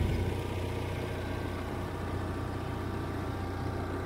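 A small boat's engine running steadily with a low, even hum while the boat is under way.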